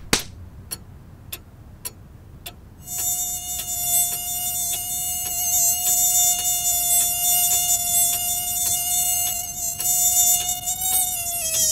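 Mosquito buzzing: a steady, thin whining tone that comes in about three seconds in, sags slightly in pitch near the end and then stops. It rides over a steady, regular ticking.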